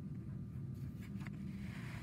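A steady low background hum, with a few faint scratches about a second in and near the end.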